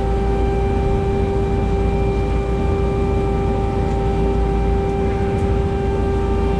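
Steady drone of a fishing boat's onboard machinery: one held tone over a low rumble, unchanging throughout.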